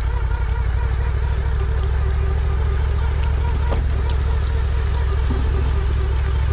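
Argo amphibious ATV's engine running steadily under load as it pulls a sled out of open water, a low drone with a steady whine above it.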